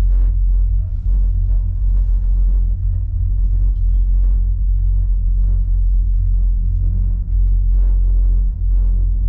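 Steady low rumble inside a small one-person cable-car gondola as it runs down along its cable.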